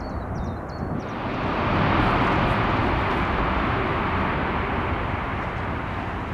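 Boeing 747 freighter's four jet engines on final approach just before touchdown: a broad, loud roar that starts suddenly about a second in, peaks soon after and slowly fades. A few high chirps are heard before it.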